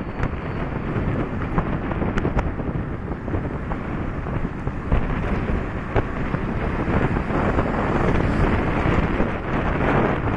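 Wind buffeting the microphone of a moving motorbike: a steady rush with a few short, sharp buffets.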